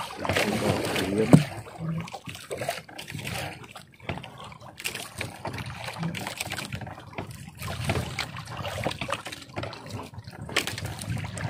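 Seawater dripping and splashing as a wet gill net is hauled by hand over the side of a small outrigger boat, with irregular light knocks and clatter from the net and boat.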